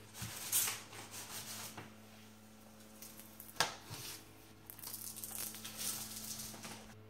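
Vinyl wall decal and its plastic film crinkling and rustling as it is rubbed and pressed flat against the wall by hand, in irregular scratchy bursts, with a sharp tap about three and a half seconds in.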